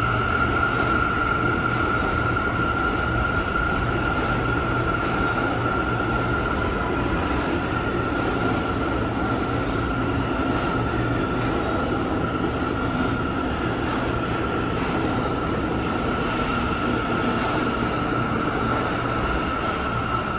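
New York City subway train running, a steady rumble with one high, unchanging whine held throughout.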